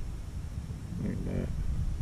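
Wind buffeting the camera microphone with a steady low rumble, and a brief murmur of a man's voice about a second in.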